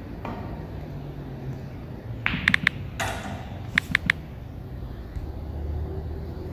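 Billiard balls clicking on a sinuca table: sharp knocks of cue on ball and ball on ball, in two quick clusters of three or four clicks about a second apart, with a short rushing noise between them. A low rumble builds near the end.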